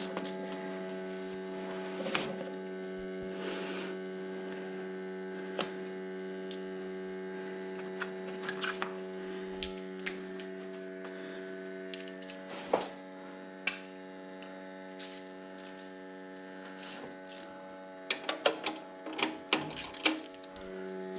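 A steady electrical hum with scattered clicks, taps and knocks, which come more often in the last third.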